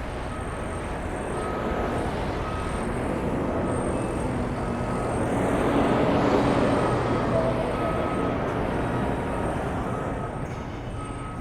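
Vehicle engine rumble with traffic noise that swells to its loudest about halfway and then eases off, like a vehicle passing by.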